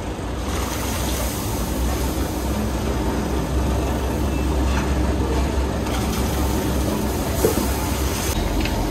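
A huge pot of meat broth boiling hard on its stove, giving a steady low rumble and hiss. A metal ladle scoops and pours the broth with a few light knocks and splashes around the middle.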